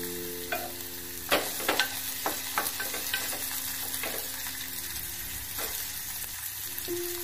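Chopped onion, green chilli and capsicum sizzling in hot oil in a small nonstick saucepan, sautéing. A wooden spatula stirs them, clacking against the pan several times between about one and four seconds in.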